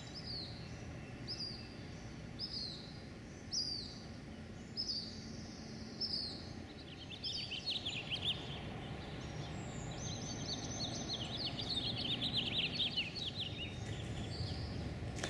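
Wild birds singing: a short high downslurred chirp repeated about once a second, giving way about halfway through to a fast run of high chittering notes, over a steady low background hiss.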